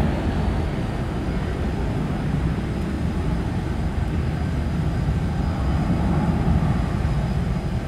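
Boeing 737-800 with CFM56-7B turbofan engines at takeoff thrust, climbing away after takeoff: a steady low rumble of jet engine noise.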